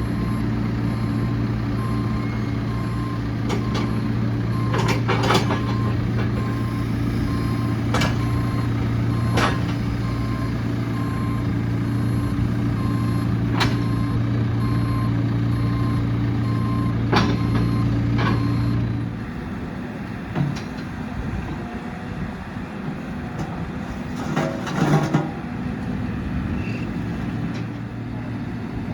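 JCB 3CX backhoe loader's diesel engine running steadily while its reversing alarm beeps repeatedly, with occasional sharp clanks. About two-thirds of the way through, the beeping stops and the engine note drops.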